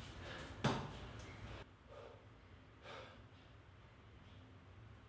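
A man's faint, short breaths and gasps as he takes a cold shower, with a click a little after half a second in and a soft hiss that drops away about a second and a half in.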